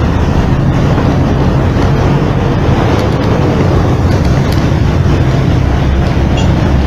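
Refrigeration vacuum pump running steadily with a low, even hum, pulling a vacuum on the water dispenser's refrigerant system through the manifold gauges ahead of the freon charge.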